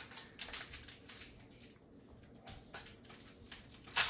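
Foil wrapper of a Pokémon trading card booster pack being handled and torn open, a string of short crinkles and crackles with a louder crackle near the end.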